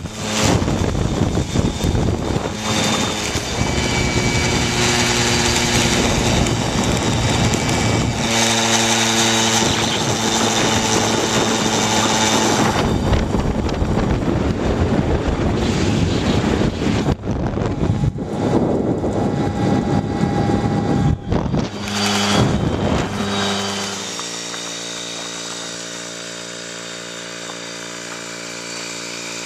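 Small step-through moped engine running while under way, with heavy wind buffeting on the microphone. Near the end it drops to a quieter, steady idle as the moped stands still.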